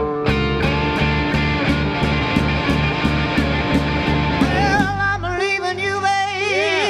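Live blues band of electric guitar, acoustic guitar and drums playing a slow blues with a steady beat. About five seconds in, the bass and beat drop away, leaving wavering, bent held notes.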